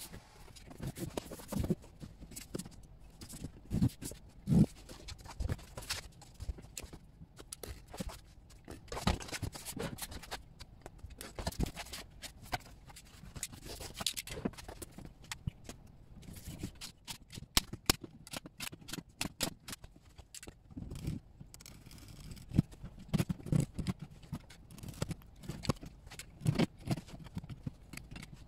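Corrugated plastic sheet being handled and cut with a utility knife: irregular scraping, clicks and knocks.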